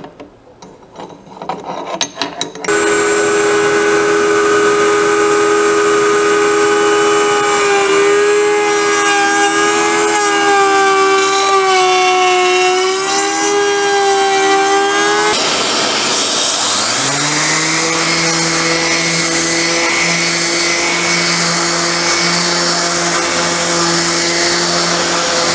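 A few light clicks as the router bit is tightened with a wrench, then a table-mounted router starts abruptly and runs steadily for about twelve seconds, its pitch dipping slightly under load as the bullnose bit cuts a finger notch into the edge of an end-grain hardwood cutting board. It stops, and a random-orbit sander on a dust-extraction hose spins up with a rising whine and runs steadily, sanding the board's face.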